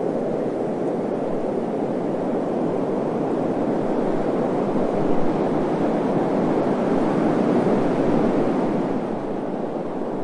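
Steady wind ambience used as white noise: a continuous low rushing that swells a little midway and eases near the end.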